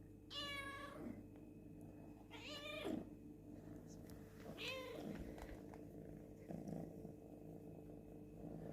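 Domestic cat meowing three times, a couple of seconds apart, the second meow the loudest.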